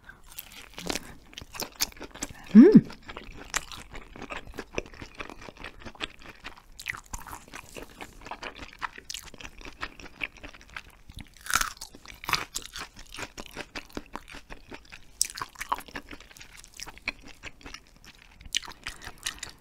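Close-miked biting and chewing of hagfish skin jelly: a dense, irregular run of wet smacks and crunchy clicks. A short hummed 'mm' about three seconds in is the loudest sound.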